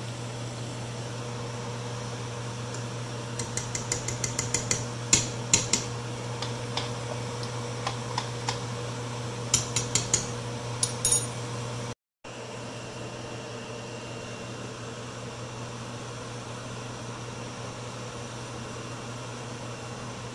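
Metal spoon clinking and tapping against a stainless steel pot in several quick groups in the first half, over a steady low machine hum. After a brief cut, the hum carries on alone.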